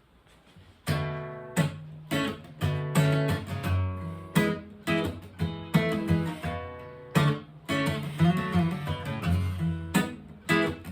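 Acoustic guitar playing a rhythmic strummed chord intro, starting about a second in, with sharp chord strokes and ringing notes between them.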